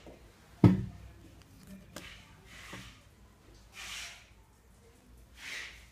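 Handling noise close to the microphone: one sharp knock about half a second in, two light clicks a little later, then soft rustling sounds twice near the end.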